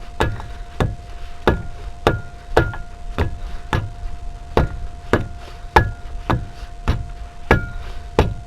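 Steady hammer blows driving a 2013 Mk7 Ford Transit rear hub and bearing onto its stub axle, about two strikes a second, some with a short metallic ring. The hub is being knocked on so the bearing seats all the way home.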